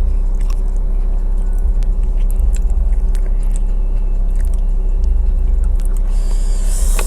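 Eating spicy chicken wings close to the microphone: scattered short crunches and mouth clicks over a steady low hum, with a brief hiss near the end.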